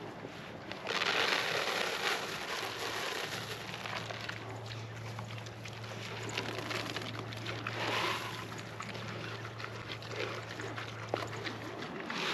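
Feed pellets poured from plastic scoops into metal feed pans in two rushes, about a second in and again near eight seconds, while Idaho pasture pigs crunch and slurp at the pans with many small clicks.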